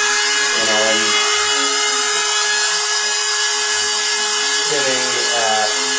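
Air-driven acrylic Tesla turbine with its generator spinning at about 25,000 RPM: a steady whine over a loud hiss of compressed air.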